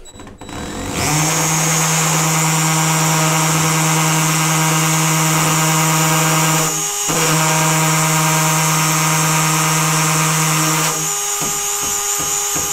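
Cordless drill with a 6 mm masonry drill bit boring into breeze block. It runs steadily, with a brief dip about halfway, and turns rougher and pulsing near the end.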